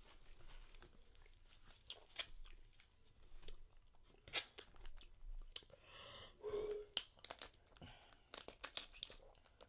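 Faint eating sounds from a seafood boil: chewing and smacking, with scattered crunchy clicks and cracks as lobster and crab shells are pulled apart.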